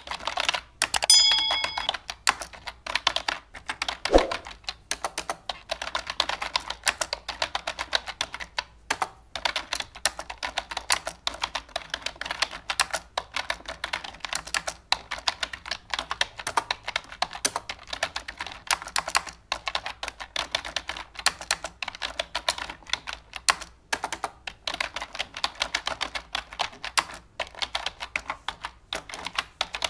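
Dense, irregular clicking, several clicks a second, like rapid typing on a keyboard. A short bell-like chime sounds about a second in.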